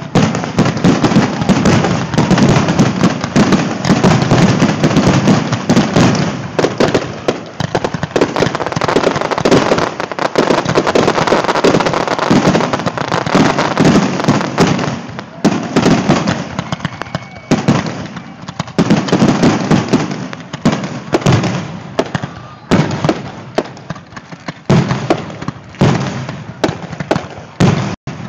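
Aerial fireworks going off in a rapid barrage: many overlapping bangs and crackling bursts, almost continuous at first, then more spaced out with short lulls in the second half.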